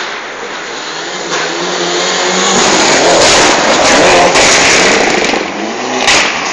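A race car going past at speed with its engine revving. It grows louder to a peak around three to four seconds in, then falls away, and a short sharp knock comes near the end.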